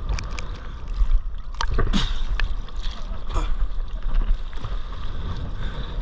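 Sea water slapping and splashing against a paddleboard right at the camera, with wind buffeting the microphone as a steady low rumble and scattered sharp splash knocks. A faint distant voice calls out a couple of times.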